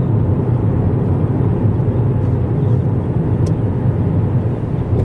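Steady low rumble of a moving vehicle, heard from inside the cabin.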